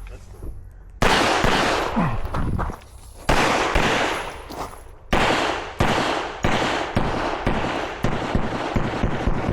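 A service pistol firing a string of shots, the first about a second in, then more at uneven spacing, some in quick pairs about half a second apart, each followed by a short decaying echo.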